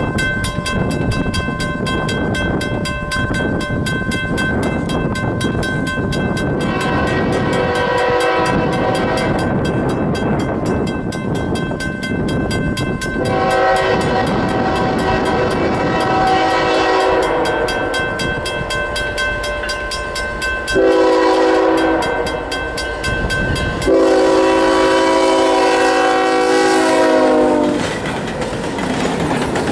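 Diesel freight locomotive's multi-note air horn sounding four blasts: long, long, short, long, the pattern blown for a grade crossing, as the train draws near. Diesel engines rumble and steel wheels click over the rail joints as the locomotives and empty hopper cars roll past.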